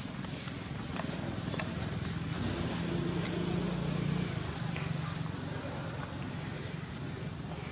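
A motor engine passing by, its low hum swelling to a peak about four seconds in and then fading, with a few faint clicks.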